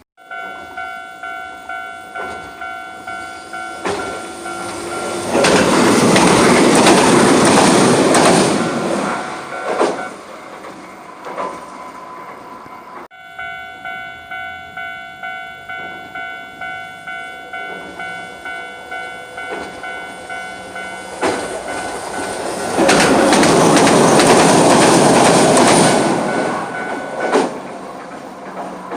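Japanese level-crossing warning bell ringing about twice a second, then a Hiroden tram rumbling loudly over the crossing for about three seconds. After a break partway through, the bell starts again and a second tram passes about three seconds before the end.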